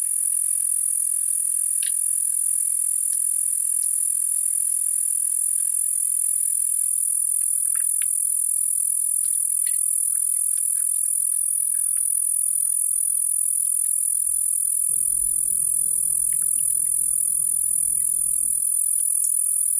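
Steady, high-pitched insect chorus with faint scattered ticks, and a brief low thump then a low rumble for about three seconds near the end.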